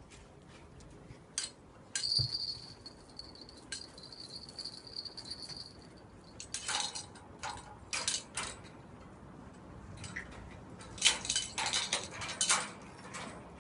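Light clinking and rattling in a few short clusters, from small cat toys being batted about on a tiled floor by a cat at play. A faint steady high whine runs for a few seconds near the start.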